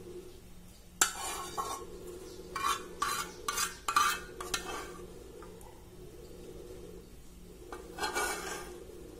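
A spoon scraping thick white sauce out of a frying pan, with short scrapes and knocks of the spoon against the pan: one about a second in, a cluster between about two and a half and five seconds, and another near eight seconds. A faint steady hum runs underneath.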